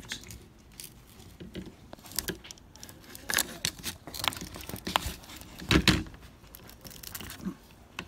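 Scattered plastic clicks and knocks of a new boot release switch being handled and pushed into its plastic mounting in the tailgate handle trim, with the loudest knock near six seconds in.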